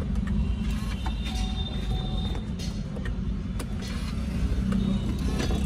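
Chevrolet Cruze 2.0's engine running steadily.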